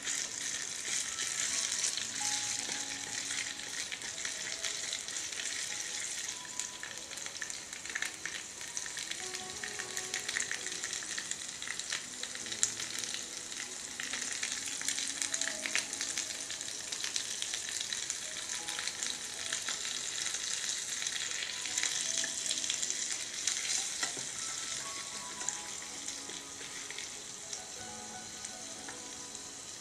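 Oil sizzling and frying in a miniature steel frying pan, with a small metal spoon stirring and clicking against the pan now and then.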